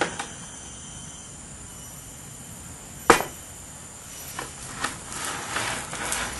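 A single sharp knock about three seconds in, followed by a couple of lighter taps and short scraping sounds, over a steady hiss.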